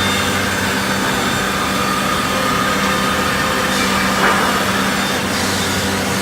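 CNC wood jigsaw running and cutting wood: a steady machine hum under the noise of the blade, with a brief rise in pitch and a small knock about four seconds in.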